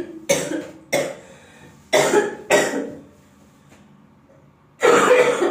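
A girl coughing in bursts: two pairs of short coughs in the first three seconds, then, after a pause, a longer cough near the end.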